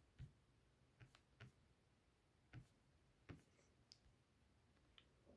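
Near silence with about seven faint, short clicks scattered irregularly through it.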